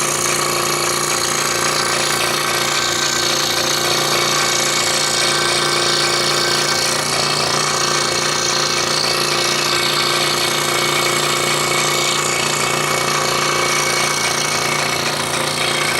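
Scroll saw running steadily, its blade stroking rapidly up and down as it cuts through a wooden puzzle board.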